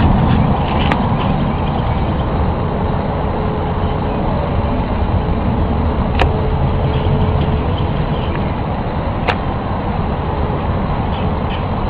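A steady, dense low rumble, unexplained, of the kind heard in the 'strange sound' recordings. A faint steady hum rises above it partway through, and three short sharp clicks cut through it.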